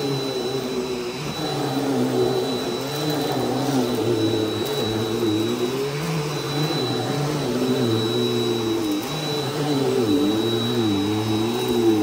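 Bissell PowerForce Helix Turbo Rewind upright vacuum running steadily while being pushed back and forth, its motor pitch dipping and rising with each stroke over a steady high whine.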